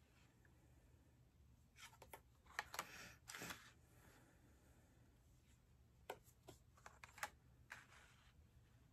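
Faint clicks and light brushing of cards being handled and drawn from a deck. The sounds come in two short clusters, about two seconds in and again around six to eight seconds in.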